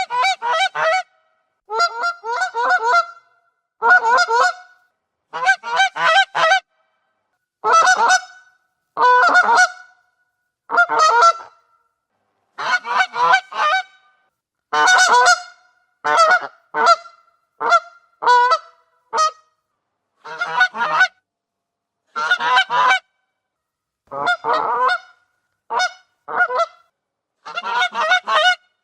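Goose honking: about twenty short runs of harsh, nasal honks, two to five calls in each, with brief silences between them.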